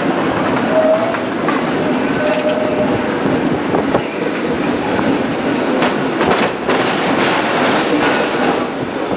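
San Francisco cable car running along its track: a steady loud rattling rumble, with two short squeals in the first few seconds and a few sharp clacks about six seconds in.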